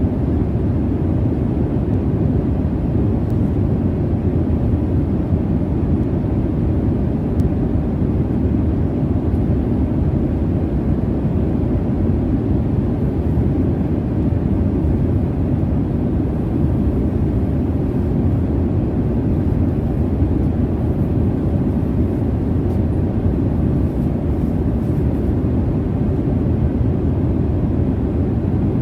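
Jet airliner cabin noise: the steady, low rush of engines and airflow heard from inside the cabin, even and unchanging.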